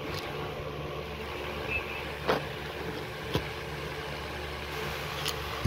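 Steady low hum of a fan, with three light clicks as coins and a small plastic container are handled.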